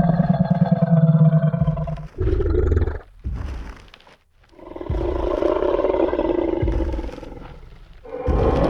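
Designed Tyrannosaurus rex roar sound effect: a long, deep roar, a shorter grunt, then a second long roar that fades out, with another roar starting near the end.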